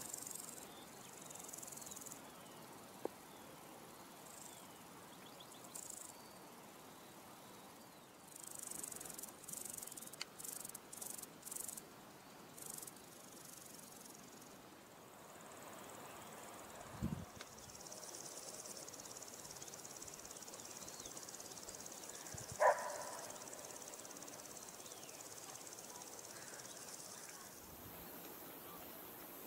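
Insects chirring in the grass, faint and high-pitched: short bursts in the first half, then a longer unbroken stretch. A low thump comes just past the middle, and a single short sharp sound a few seconds later is the loudest thing.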